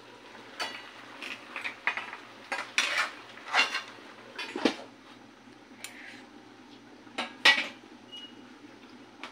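A metal spoon clinking and scraping against a stainless steel wok as the pan is stirred, in a string of sharp knocks. Near the end comes the loudest clank, as the stainless lid is set down on the pan.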